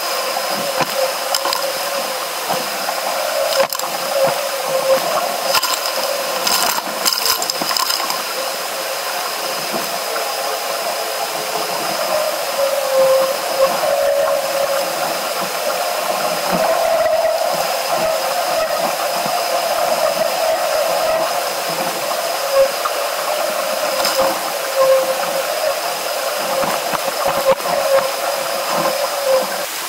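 Steady rushing hiss of water along the hull of a Musto Skiff sailing at speed, with scattered short clicks.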